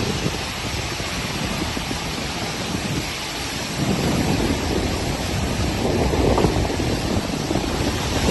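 Monsoon rain falling hard with gusting wind buffeting the microphone, getting louder about four seconds in.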